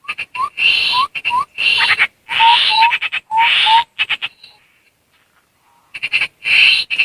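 Bird-lure track of tepus landak (a babbler) calls mixed with human mouth whistling: phrases of raspy, hissing calls laced with short rising chirps. They break off about four seconds in and start again near the end.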